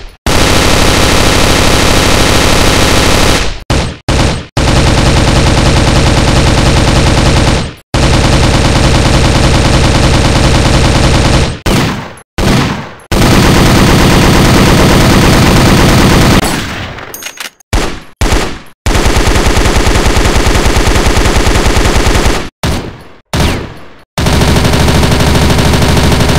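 Machine-gun fire in six long continuous bursts of about three to four seconds each, separated by brief pauses with a few short bursts that die away quickly.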